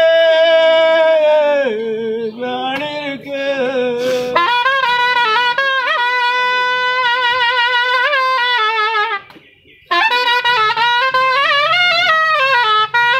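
Reed wind instrument playing a slow, ornamented melody of long held notes with pitch bends and wavers, breaking off briefly about nine seconds in, then resuming.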